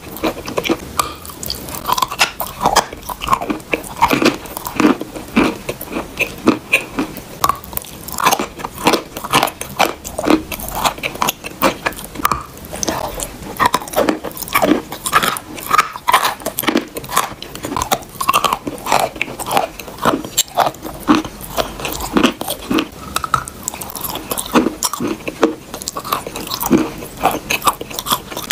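Close-miked biting and chewing of water-soaked chalk: a quick, continuous run of soft wet crunches and squishes.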